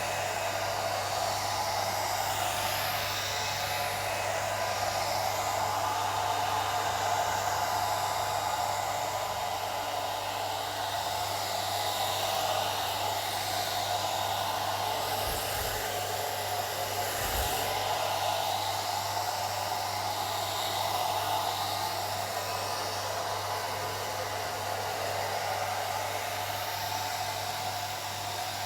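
Old hair dryer running steadily: a constant rush of blown air over a steady low hum.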